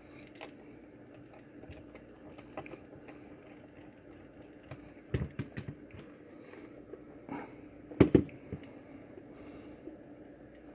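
Scattered small clicks and knocks as a hard plastic multimeter case is unscrewed and handled with a small screwdriver, the loudest pair of knocks about eight seconds in, over a faint steady hum.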